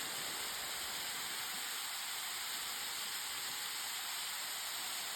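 Waterfall pouring, a steady, even rushing hiss of falling water.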